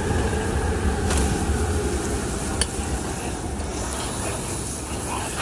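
Liquid bubbling and sizzling in a steel wok over a running gas burner, with a low steady rumble under it. A sharp clink of a metal ladle about two and a half seconds in.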